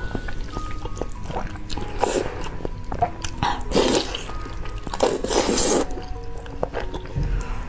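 Wet, loud slurping of saucy noodles being sucked into the mouth, several long slurps a second or two apart, over background music with a plucked melody.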